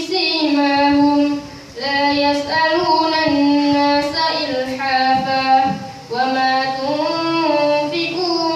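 A boy reciting the Qur'an from memory in a melodic chant (tartil), with long held, gently gliding notes. He pauses briefly for breath twice between phrases.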